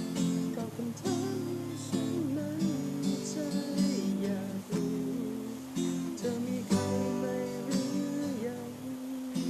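Acoustic guitar music: strummed chords under a melody line whose notes bend and slide.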